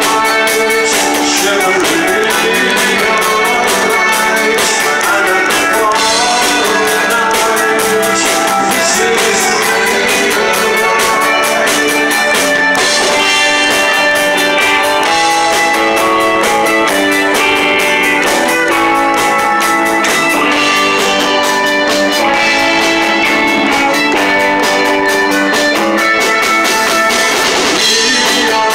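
Live rock band playing loudly: electric guitars and a drum kit, with a man singing lead into the microphone.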